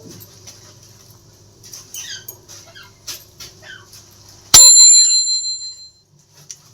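A single bright bell ding, struck once about four and a half seconds in and ringing out for about a second and a half. Before it, faint short chirps and soft ticks.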